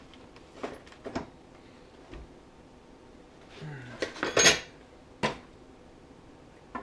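Metal tools and clutch parts knocking and clinking as they are handled on a workbench: a few separate clanks, with the loudest cluster about four seconds in.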